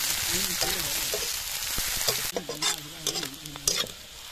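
Sliced onions and green chilli sizzling as they fry in a metal kadai, stirred with a flat metal spatula that scrapes against the pan. The sizzle is steady at first, then drops about two seconds in, and a few sharp scrapes of the spatula stand out.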